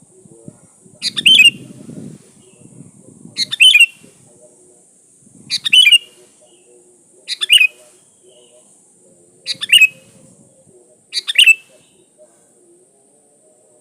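Sooty-headed bulbul (kutilang) giving a short, sharp call six times, about every two seconds, over a faint steady hiss.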